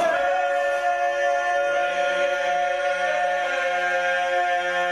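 Background music: a sustained chord of several held, choir-like tones, with a lower note joining about two seconds in.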